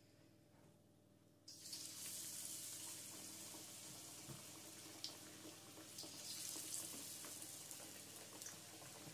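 Batter-coated potato slices frying in hot oil in a karahi: a steady sizzling hiss that starts abruptly about a second and a half in, with a few faint clicks.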